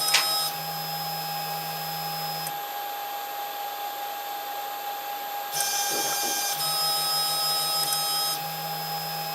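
Stepper motors of a Protomaker Black Sprint FDM 3D printer homing the Z axis. They run with a steady hum for about two and a half seconds, stop for about three seconds, then run again from about five and a half seconds in as the axis moves up and then back down.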